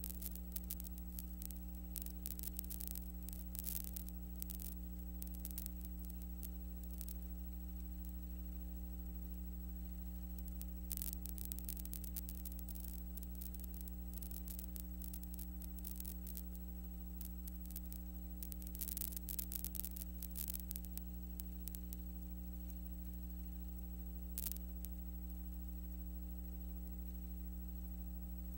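Steady electrical mains hum with crackles of static that come and go, on a soundtrack that carries no sound of its own.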